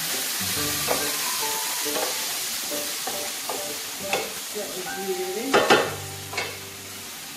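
Minced meat sizzling in an electric skillet while a wooden spoon stirs it, with a few sharper scrapes and knocks of the spoon against the pan in the second half, the loudest about five and a half seconds in. The sizzle grows quieter near the end.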